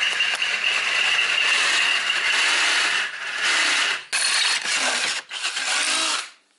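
Power drill boring a hole through a steel plate clamped in a vise, running in stretches with brief pauses and stopping about six seconds in.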